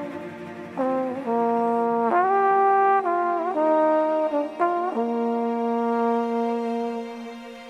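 Trombone playing a slow melody, gliding between a few notes and then holding one long note from about five seconds in that fades away near the end.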